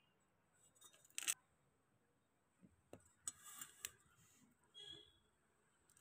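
Faint handling sounds of jewellery and its packaging: a few short clicks and brief rustles, about a second in, around three to four seconds in, and near five seconds.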